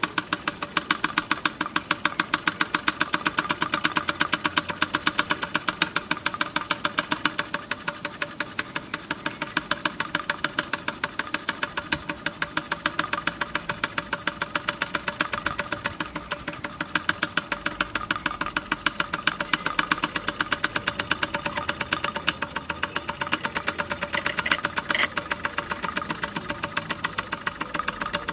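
Kenneth Wells miniature steam traction engine running under steam, its single oscillating cylinder beating out a rapid, steady, even chuff as the flywheel spins.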